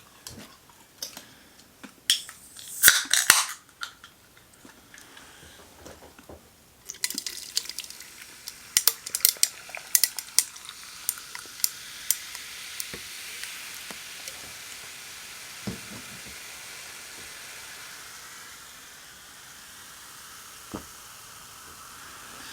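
People eating: crisp crunchy bites and chewing, with sharp clicks and crackles from handling food and plates, loudest about three seconds in and again from about seven seconds on.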